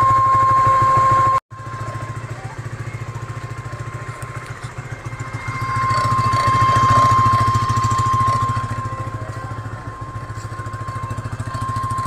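Honda RS150R single-cylinder engine running, with a steady high-pitched whine on top of it that drops out after a second or so and returns, the unidentified unwanted noise. The engine sound swells for a couple of seconds in the middle as the revs rise.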